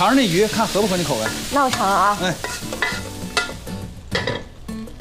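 Food sizzling as it is fried and stirred in a pan, with a wavering pitched sound rising and falling over it; the sizzle dies away about three seconds in. A few sharp clinks follow.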